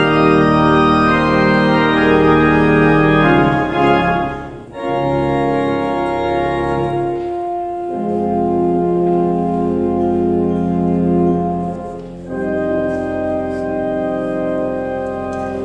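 Church pipe organ playing slow, sustained chords, the harmony shifting every few seconds with brief breaks between phrases.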